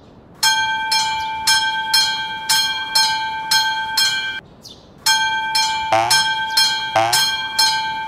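Railroad crossing warning bell ringing at about two strikes a second. It breaks off for about half a second midway, then starts again. Springy cartoon boing sound effects sliding in pitch come in over it two or three times in the second half.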